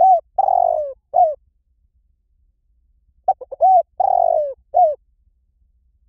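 Spotted dove cooing: two phrases about three seconds apart, each a few short coos, then a long falling croo and a short closing coo.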